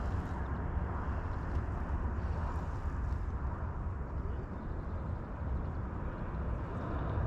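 Steady low rumble of wind buffeting the microphone outdoors.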